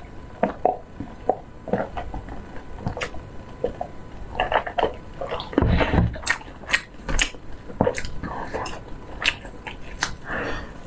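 Close-up eating sounds: a sip through a straw, then chewing and swallowing with many small mouth clicks. Near the end comes a bite into a fried ball pulled off a wooden skewer.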